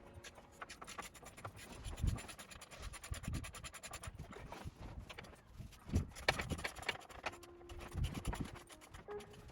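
Scratching and scraping with a fast irregular run of small clicks and a few heavier knocks, typical of hand work on metal and trim parts.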